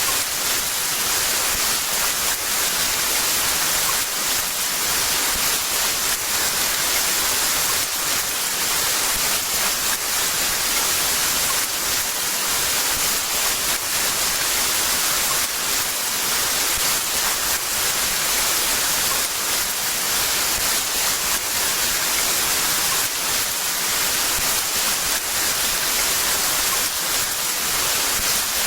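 Heavy rain falling in a steady, dense hiss of spatter, with no thunder.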